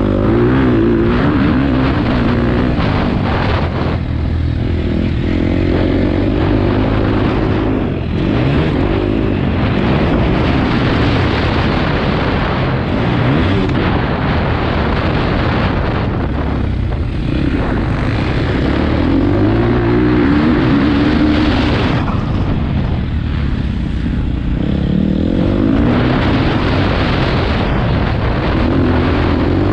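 Motocross dirt bike engine revving hard under the rider, heard from a helmet camera. Its pitch climbs again and again as it pulls through the gears, with several short lulls where the throttle comes off.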